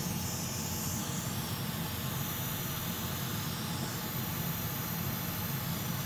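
Hot air rework station blowing a steady hiss of hot air over a newly placed Thunderbolt controller chip, reflowing its solder so the chip settles onto its pads.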